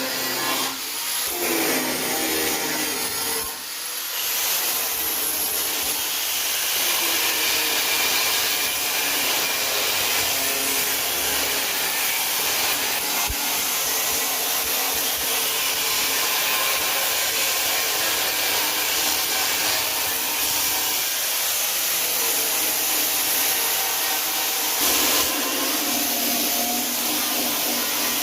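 Angle grinder working on steel C-channel: a steady, harsh hiss of the abrasive disc on metal over the motor's whine, easing off briefly twice near the start.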